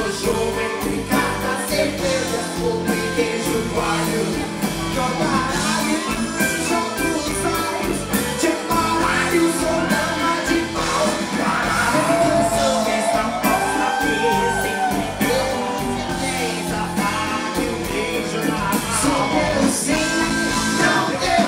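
A live band playing a song, with a woman lead singer and backing singers over electric guitar, keyboards and drums, heard from the audience.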